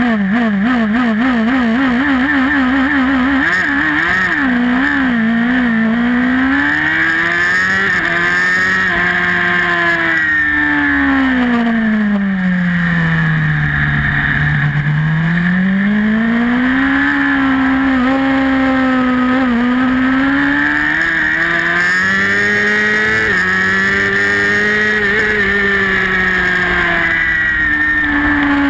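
Racing superbike's engine heard onboard at a race start: revs held in a rapid wobble on the grid for the first few seconds, then the bike pulls away hard through the gears. The engine note sweeps up and down with throttle and gear changes, drops to its lowest about halfway through, and climbs again.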